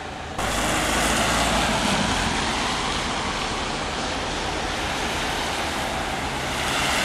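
Steady street traffic noise: tyres hissing on a wet road over a low engine rumble. It starts abruptly about half a second in.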